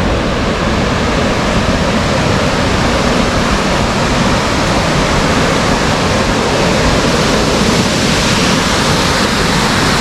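Waterfall pouring: a loud, steady rush of falling water with no breaks.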